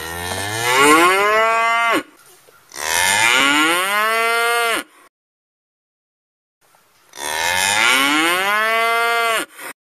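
Cow mooing: three long moos of about two seconds each, each rising and then sliding down in pitch at its end, with a stretch of dead silence between the second and third.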